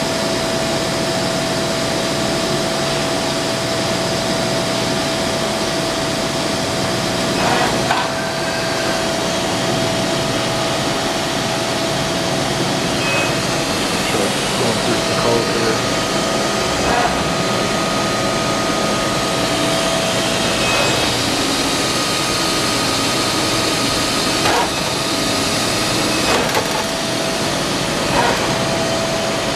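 Mori Seiki MV Junior CNC vertical machining center running a program: a steady whine over a constant mechanical hum, with a second, higher whine for several seconds in the middle and a few short clunks along the way.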